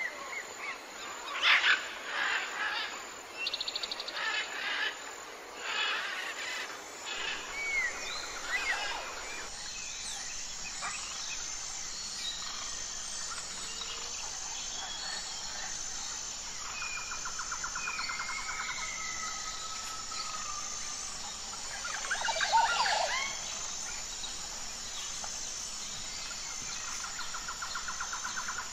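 Forest ambience: several wild birds chirping and calling, busiest in the first few seconds, over a high insect chirp repeating about once a second. A rapid trilling call comes twice later on, and a short flurry of bird calls comes near the end.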